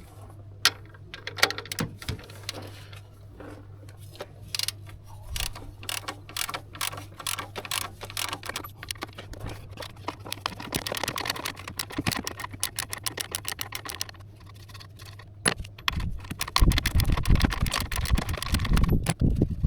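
Ratchet wrench clicking in quick runs as a bolt on the engine mounting is worked loose, with clinks of metal tools. Heavier knocks and rumbling come in about three quarters of the way through.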